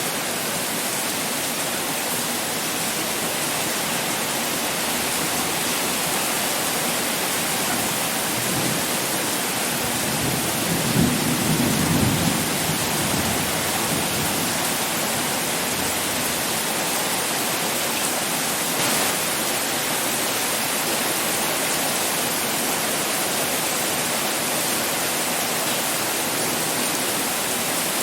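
Heavy pouring rain, a steady hiss, with a low rumble of thunder swelling and fading about ten to thirteen seconds in.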